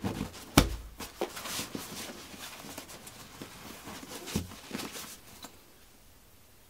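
Handling of a stuffed nylon bag: fabric rustling and scraping as it is pressed down and gripped, with two soft thumps, one about half a second in and one about four seconds in, and a few light clicks near the end.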